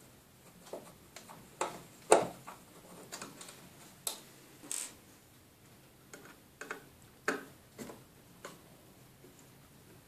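Irregular clicks and small knocks of a screwdriver taking the screws out of a sat-nav unit's top cover, with the loudest knock about two seconds in.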